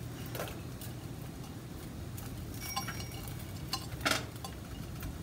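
Light clinks and taps of a ceramic serving dish and fingers against a frying pan while chopped onion is pushed into the pan by hand: a few short scattered clicks, the strongest about four seconds in, over a low steady hum.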